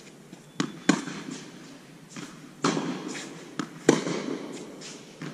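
Tennis ball rally on an indoor hard court: several sharp pops of racquets striking the ball and the ball bouncing, the loudest about one and four seconds in, each ringing briefly in the hall.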